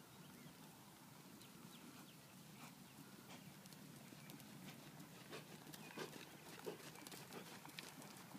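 Faint hoofbeats of a horse cantering on soft arena dirt, a scatter of dull thuds that grow louder and more distinct in the second half as the horse passes close.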